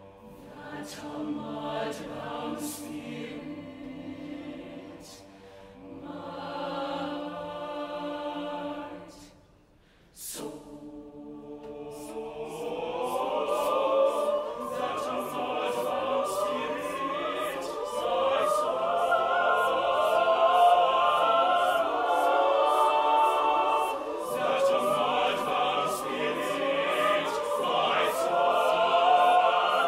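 Mixed chamber choir singing sustained chords, softly at first. After a brief pause about a third of the way in, the voices swell into a louder, fuller passage.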